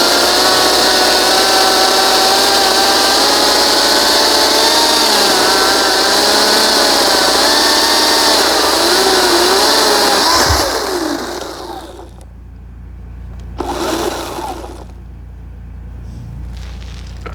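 Ryobi 40V cordless chainsaw cutting through a log about 6 inches thick, its motor pitch wavering and dipping under load over the hiss of the chain in the wood. About ten seconds in there is a knock, then the saw winds down to a stop, followed by a brief rustling noise.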